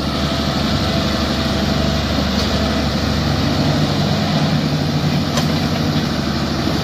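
Heavy diesel engines running steadily: a farm tractor idling and a hydraulic excavator working its boom.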